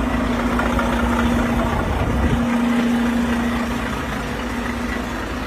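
Diesel engine of a parked Volvo semi-truck idling, a steady hum with a deep rumble underneath; the rumble eases a little about two and a half seconds in.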